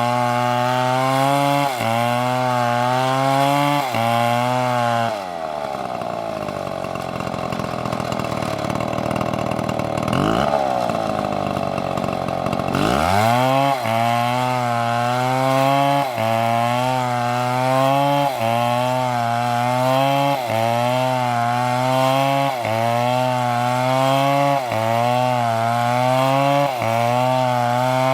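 Chainsaw running at high revs, its pitch dipping briefly about every second and a half as it works through wood. About five seconds in it drops to idle for roughly eight seconds, is blipped once, then revs back up and carries on with the same pulsing pattern.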